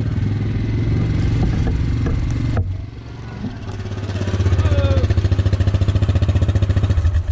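STIHL MS 261 two-stroke chainsaw running at high revs. It drops off suddenly about two and a half seconds in, climbs back up to full throttle, and cuts off at the end.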